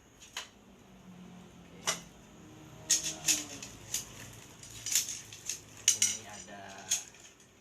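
Small hard items, likely metal, clinking and clattering as they are handled: about a dozen sharp clicks with short ringing tails, thickest in the middle of the stretch.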